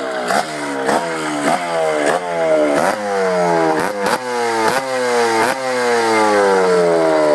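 Suzuki AX motorcycle's small single-cylinder engine being blipped hard and repeatedly, about twice a second. Each rev snaps up and falls away, and the revs fall back for longer near the end.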